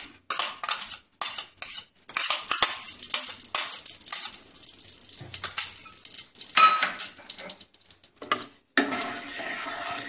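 A metal spoon scraping and clinking against a small steel pot as ghee is spooned into a pan of hot oil, with a stretch of hissing sizzle about two seconds in. Near the end a wooden spatula scrapes around the non-stick pan.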